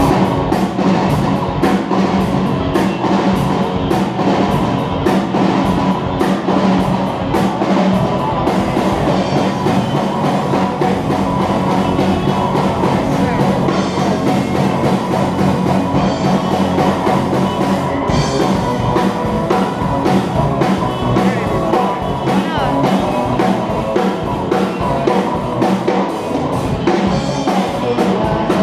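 Rock music with a drum kit, kicking in abruptly at full volume and playing steadily throughout.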